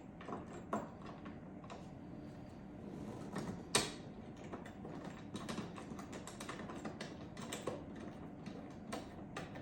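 Scattered light clicks and taps of hard plastic and metal parts being handled as the handle and pin bolts of a Milwaukee Packout trolley are fitted together, with one sharper knock nearly four seconds in.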